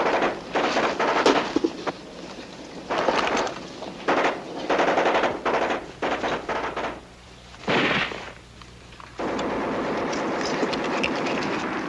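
Bursts of rapid machine-gun fire from a war-drama battle soundtrack, then one loud bang a little before the eighth second. About nine seconds in, a steady continuous noise takes over.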